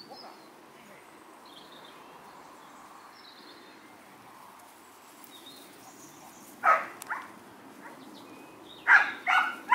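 Sheepdog barking: two barks about two-thirds of the way in, then three quick barks near the end, over faint birdsong.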